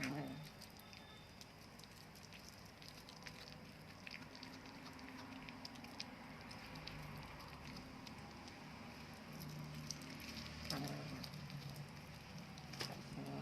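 A cat chewing and crunching its food: many small, quick clicks. Three times, at the start, about eleven seconds in and near the end, it gives a short, low vocal sound while eating.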